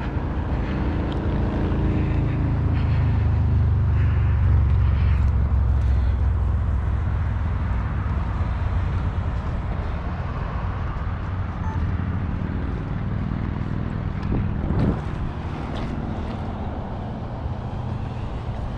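A motor engine passing at a distance: a low drone that swells over the first few seconds and then slowly fades. There is a single sharp knock about fifteen seconds in.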